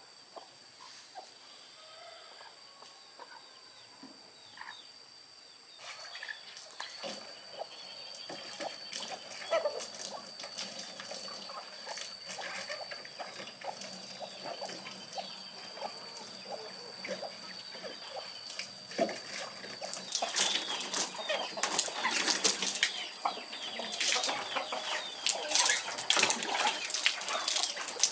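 Chickens clucking, with water splashing and short knocks; the splashing grows busier and louder over the last several seconds.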